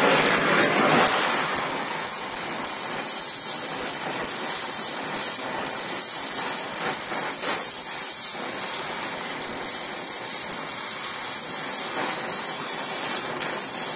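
DHC2000 oxy-acetylene torch with a number-two welding tip, its flame hissing steadily while chromoly tubing is tack-welded with filler rod.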